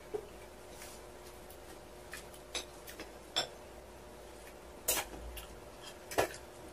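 A fork and knife clinking and scraping lightly on a plate and foil while cutting roast chicken: a handful of short, scattered clicks, the clearest a little before the last two seconds.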